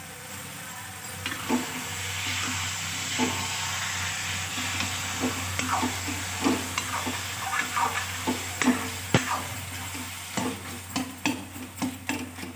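Zucchini sabzi sizzling in a metal kadhai on a gas stove while a metal ladle stirs it, scraping and knocking against the pan. The knocks start about a second in, come irregularly, and grow more frequent near the end.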